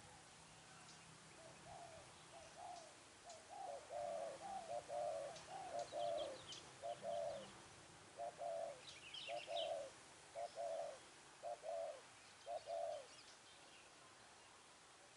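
Spotted dove cooing: a long run of short, low coos, one every half second or so, that stops a couple of seconds before the end. Faint high chirps from a small bird come twice in between.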